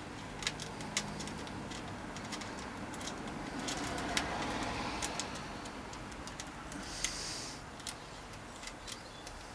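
Light, irregular clicks and ticks of small metal parts being handled: a nut being threaded by hand onto a mudguard stay's fixing bolt at the clip on the mudguard.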